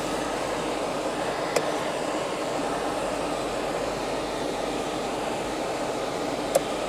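Steady cabin noise of a vehicle driving slowly over a rough gravel and rubble track, heard from inside the car. Two sharp knocks, one early and one near the end, about five seconds apart.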